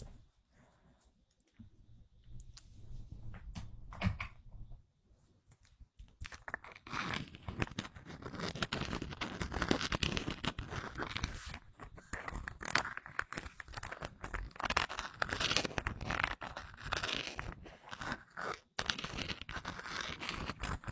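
Close-miked crinkling and tearing of packaging wrap, preceded by a few soft taps and a knock; the dense crackling starts about six seconds in and keeps going.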